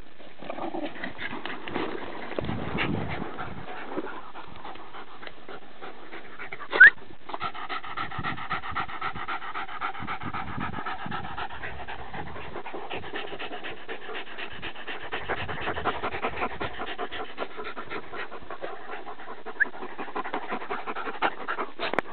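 Dogs panting hard in play. About seven seconds in there is one short, loud, rising squeal.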